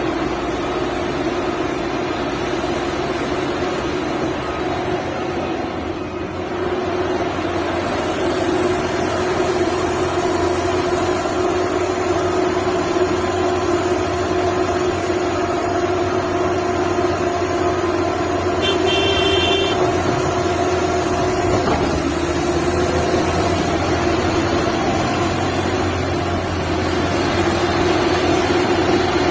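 Liebherr 954 excavator's diesel engine running steadily with a deep rumble. About two-thirds of the way through, a short high beep sounds for about a second.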